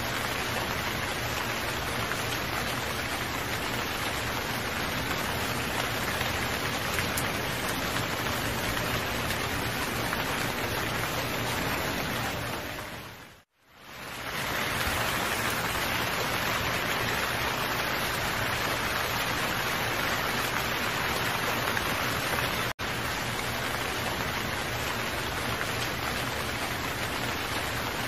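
Steady rainfall, an even hiss of rain with no thunder. About halfway through it fades out to silence and fades back in over a second or two, and near three-quarters of the way through it drops out for an instant.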